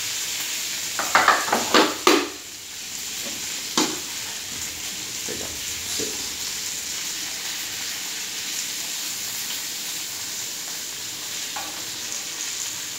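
Meat and sausage sizzling steadily in a hot stovetop grill pan. A knife clacks sharply against a pan several times at about one to two seconds in, and once more near four seconds.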